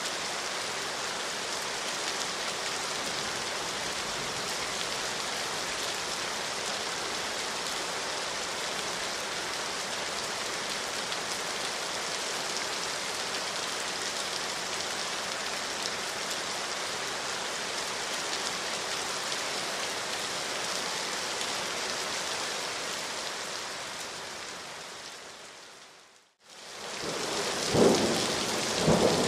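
Steady heavy rainfall, an even hiss of drops. Near the end it fades away to a moment of silence, then comes back louder with low rumbling surges.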